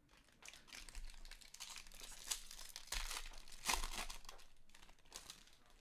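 Foil wrapper of a Bowman Draft trading-card pack crinkling and tearing as hands open it: an irregular run of crackles, loudest a little past the middle.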